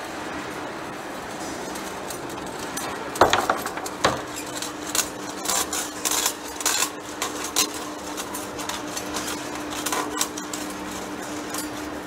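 Large metal lathe cutting a steel workpiece: steady machining noise, with two sharp metallic knocks about three seconds in and then a run of irregular clicks as metal chips curl, snap and clink against the tool and the workpiece. A steady low tone joins about four seconds in.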